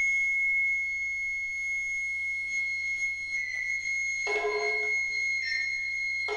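Recorder holding one long, piercing high note, with lower tones joining about four seconds in.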